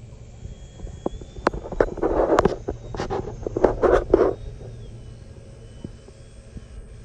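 Radio-controlled F/A-18 model jet flying overhead, its motor a faint high whine that shifts in pitch and climbs near the end, over a steady low rumble. Between about one and a half and four seconds in, a run of loud, rough crackling bursts and sharp clicks covers it.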